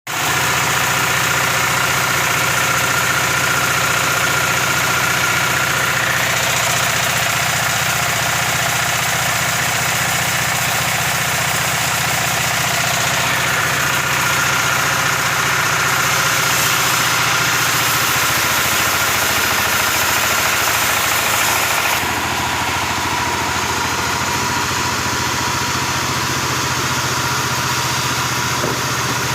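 Circular saw rig running steadily, with a low engine-like drone under a steady high whine from the blade. About 22 seconds in the sound drops a little and loses some of its treble.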